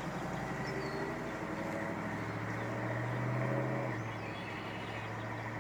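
A steady engine hum that swells slightly, then drops back about four seconds in, with a couple of faint high bird chirps.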